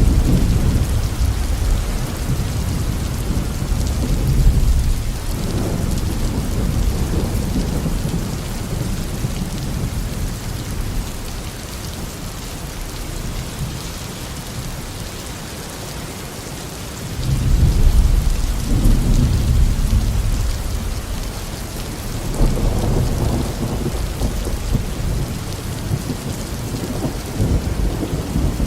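Steady heavy rain with thunder rumbling low underneath. A loud roll of thunder breaks in suddenly about two-thirds of the way through and fades over several seconds, and another rumble swells near the end.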